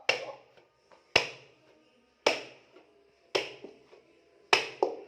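Nastar pastry dough being slammed down hard onto a surface, five sharp slaps about once a second, beating the dough soft so it won't crack.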